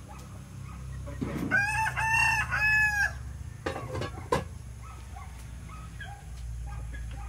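A rooster crows once, starting about a second and a half in, in a few drawn-out arched notes. A couple of sharp knocks follow about a second later.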